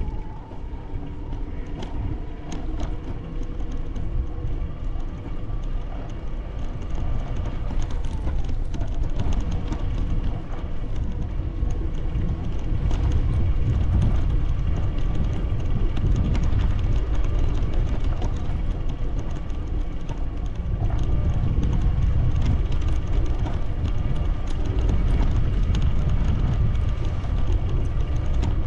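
Steady low rumble of wind on the microphone and movement along a brick-paved street, with many small rattles and clicks over it.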